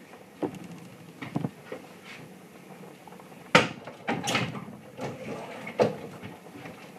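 Kitchen cupboard doors and drawers being opened and shut while someone rummages through them: a series of knocks and bangs, the loudest about three and a half seconds in.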